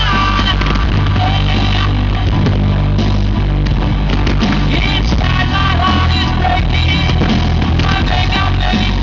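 Loud rock music with a singing voice over a steady bass line and drums.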